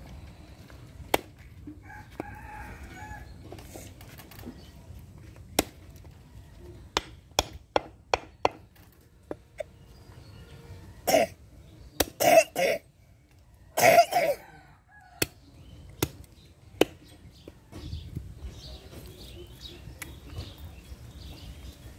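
Scattered sharp knocks of a large knife striking through a carp onto a wooden chopping block. About halfway through, a chicken calls loudly in three short bursts.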